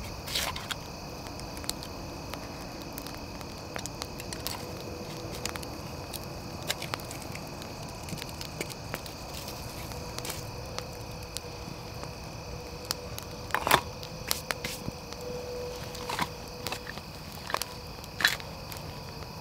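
Wood fire crackling with scattered sharp pops, the loudest about two-thirds of the way through, over a steady insect drone.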